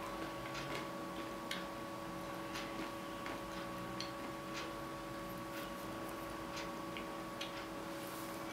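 Wall clock ticking about once a second over a steady hum.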